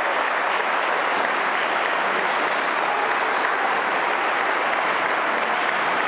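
Crowd applauding, a steady, unbroken clatter of many hands clapping.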